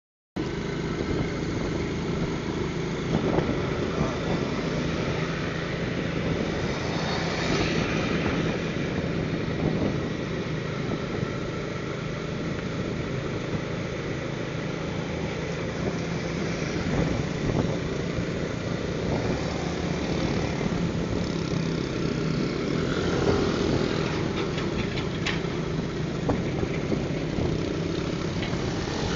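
Car driving along a road: steady engine hum and road noise, briefly a little louder twice.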